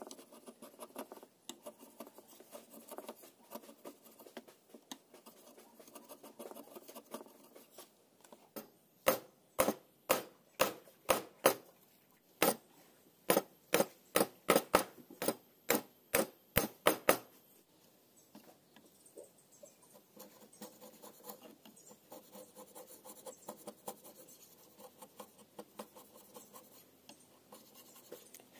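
Steel hand chisel paring a hardwood joint with soft scraping and shaving sounds. In the middle come about eighteen sharp knocks, roughly two a second, as the chisel is struck upright to chop down the joint's shoulder line. Then light scraping again.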